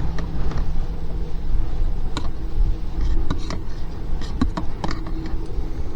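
Gusty wind rumbling on the microphone over a camping gas stove burning under a pan, with scattered light taps.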